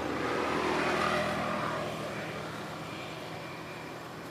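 A steady background engine hum with hiss, easing off a little after about two seconds.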